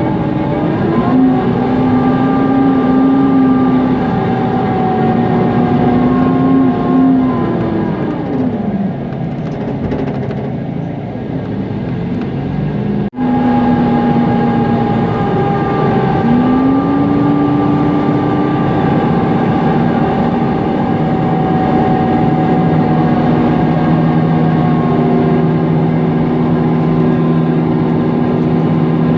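Mercedes-Benz Conecto NGT city bus's OM 936 G natural-gas engine and its loud cooling fan running, with a whining tone that falls away about eight seconds in as the bus slows, then climbs again past halfway and holds steady as it pulls away.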